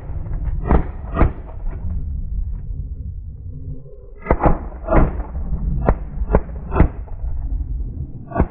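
A volley of shotgun blasts from several hunters firing at geese overhead: two or three shots in the first second and a half, then a rapid string of about six shots between four and seven seconds in, and one more near the end. Strong wind rumbles on the microphone throughout.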